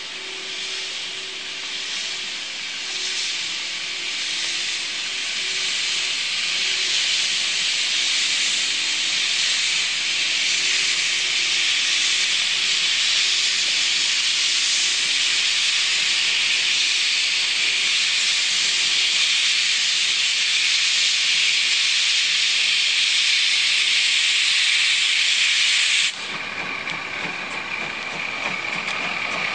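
Class 75 tank steam locomotive 75 1118 rolling in with a loud, steady hiss of steam from its open cylinder cocks, growing louder as it passes. About 26 seconds in the hiss cuts off suddenly, leaving the quieter rolling of the coaches with a thin steady squeal.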